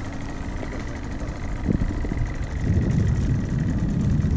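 Wind buffeting an action camera's microphone: a low, uneven rumble that swells and eases in gusts.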